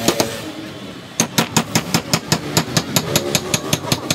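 A wooden mallet tapping a steel carving chisel into a wood panel, cutting chips away. The strikes come in a quick, even run of about five a second, after a brief pause near the start.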